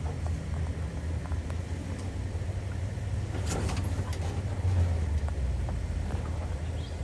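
2018 Toyota 4Runner TRD Pro's 4.0-litre V6 running with a low, steady rumble as the truck crawls over rough trail, with a few short knocks and rattles from the truck about three and a half seconds in and the engine note swelling slightly just before five seconds.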